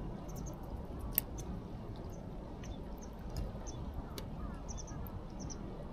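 A utensil clicking and scraping in a cooking pot while canned snow crab meat is broken up in the broth, with a sharp clink about a second in and another about four seconds in. Faint high chirps sound over a low, steady outdoor rumble.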